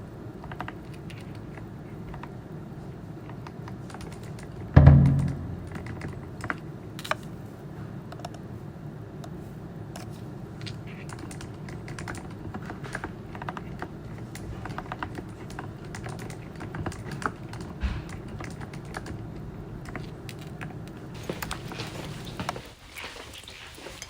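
Typing on a mechanical keyboard with hand-lubricated low-noise linear switches: a run of soft, muted key clicks. A single loud thump comes about five seconds in, and a low background sound under the typing stops near the end.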